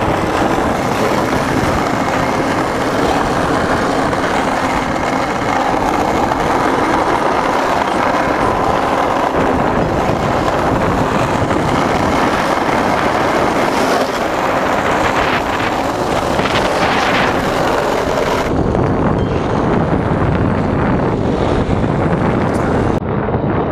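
Skateboard wheels rolling fast downhill on asphalt, a loud steady rolling roar with wind on the microphone; the sound shifts about three-quarters of the way through as a new run begins.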